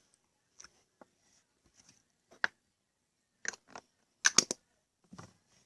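Handling of small plastic slime containers: a scattering of light clicks and taps, with a quick cluster of sharper clicks about four seconds in.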